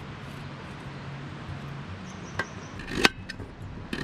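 A knife chopping through a raw carrot onto a slatted aluminium camp table: two sharp chops about two and three seconds in, the second the louder, over a steady low background hum.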